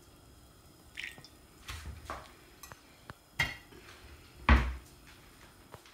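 A few sharp clinks and knocks of cookware as cooking oil is poured into a deep metal kadai, the loudest about four and a half seconds in.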